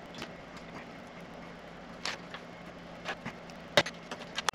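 Scattered small clicks and taps of parts and a screwdriver being handled on an opened MacBook Pro's aluminium case, the sharpest click a little before the end, over a steady low hum.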